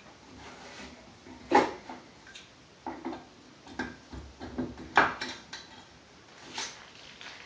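Metal AR-15 parts being handled at a workbench while the dust cover is fitted to a stripped upper receiver: irregular small clicks and clinks, with two sharper knocks about a second and a half in and about five seconds in.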